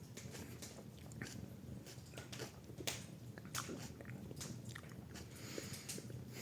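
A person chewing a small 7 Pot Chocolate superhot chilli pod: faint, irregular crunching and wet mouth clicks.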